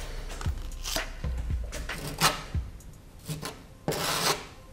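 Small spatula scraping freshly mixed plaste filler over a crack in a rough cement wall: a series of short scraping strokes, about eight, as the filler is pressed into the crack and smoothed across it.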